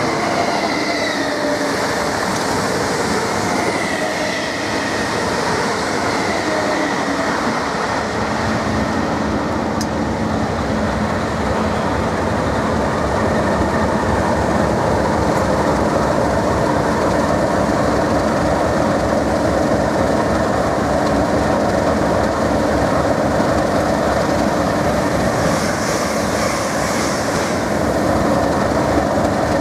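Test train coaches rolling in and slowing to a stop, with a falling wheel and brake squeal over the first few seconds. Then the Class 37 locomotive's English Electric V12 diesel idles steadily at a stand, with a brief hiss near the end.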